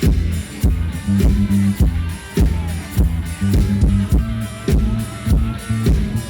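Live rock band playing an instrumental passage between sung lines: electric guitar, bass and drum kit keeping a steady beat.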